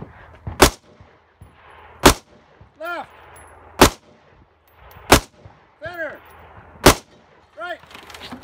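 Five aimed rifle shots from a scoped rifle, about one and a half seconds apart. Three of them are followed a moment later by a faint distant ring, typical of bullets striking steel targets downrange.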